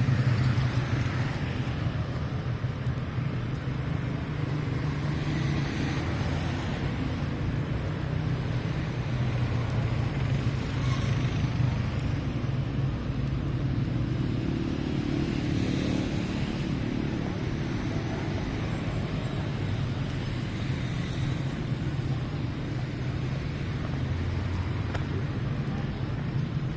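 City street traffic: a steady rumble of cars and motorbikes running past.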